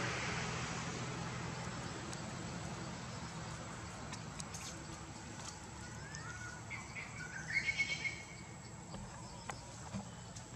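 Macaque calls: a short run of high, gliding squeals about seven seconds in, over a low steady hum and a hiss that fades away at the start.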